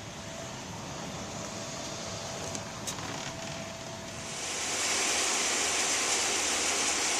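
Running air-conditioning equipment: a steady mechanical noise with a faint hum, a couple of light clicks, then a louder, even hiss that sets in about four seconds in and holds.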